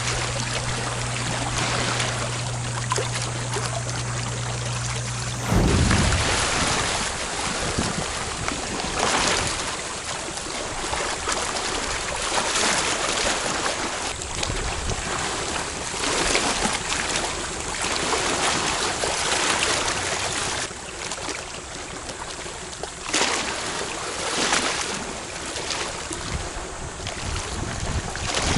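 Seawater sloshing and splashing around someone in the shallows, with wind buffeting the microphone in uneven gusts. A low steady hum runs for the first five seconds or so, then gives way to a loud rumbling gust or splash.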